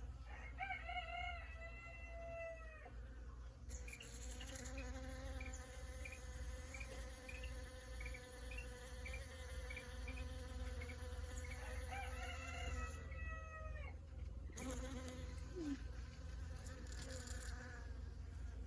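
Many bees buzzing at flowers, their overlapping hums swelling and bending in pitch as single bees pass close, loudest near the start and again about two-thirds of the way through.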